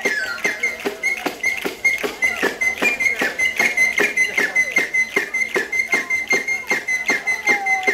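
Live tammurriata: tammorre, large frame drums with jingles, beat a steady pulse of about four strokes a second. A wooden flute holds a high, shrill, slightly wavering note over the drums.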